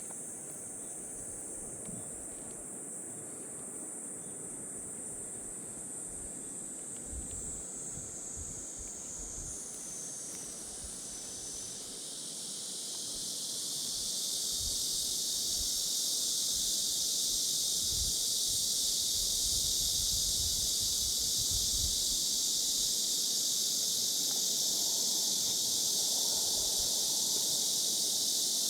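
Steady high-pitched insect chorus that swells and grows louder about halfway through, over a low continuous rush of stream water, with wind buffeting the microphone now and then.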